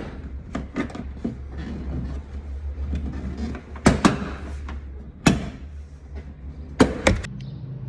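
Plastic retaining clips of a Chevrolet Onix tailgate trim panel snapping loose one by one as the panel is pried off: several sharp snaps spread through, the loudest about four, five and seven seconds in, over a low steady hum.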